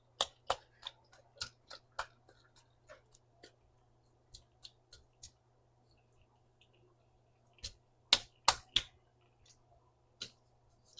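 Kitchen utensils knocking and clinking against a skillet and a can or jar as marinara sauce and crushed tomatoes are added to the lasagna noodles: irregular sharp taps, with the loudest three in quick succession about eight seconds in.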